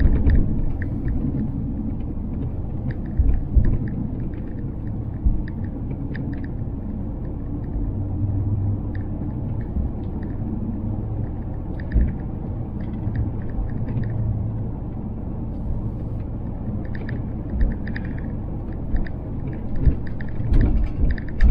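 Steady low road and engine rumble heard inside a moving RV's cabin, with occasional light clicks and rattles.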